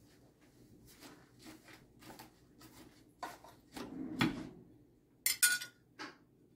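Spinach leaves rustling as they are pushed into a plastic blender jar. A heavier knock comes about four seconds in, then two sharp clinks of a metal spoon against the jar about five seconds in.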